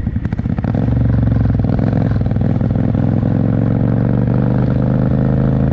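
Motorcycle engine heard from the rider's seat, running unevenly at low revs at first, then opening up about a second in and pulling steadily, its pitch slowly rising as the bike accelerates.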